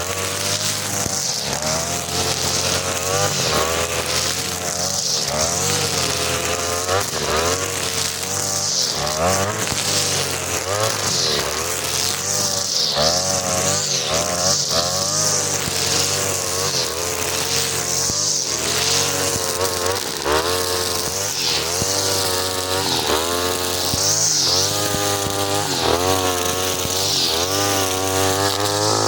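A 43cc two-stroke brush cutter spinning a four-line head of 2.5 mm nylon trimmer line while cutting grass. The engine runs at high speed, and its pitch rises and falls every second or two as the line meets the grass.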